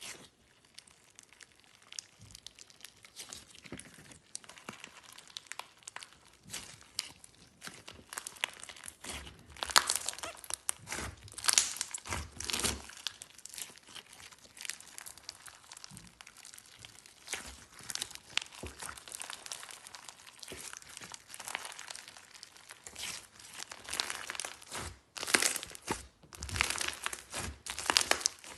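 Hands squishing and kneading clear slime with ingredients mixed in: a steady run of irregular sticky clicks, pops and crackles, busiest about ten seconds in and again near the end.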